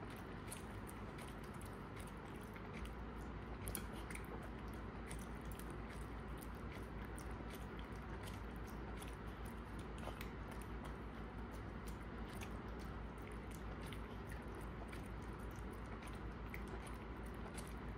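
A small dog eating crumbs off a ceramic plate: quick chewing and licking, with many small clicks throughout.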